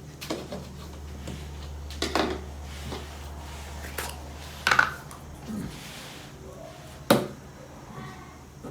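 Toys being handled: a few sharp knocks and clacks a couple of seconds apart, with lighter clicks between, over a low steady hum that stops a little past halfway.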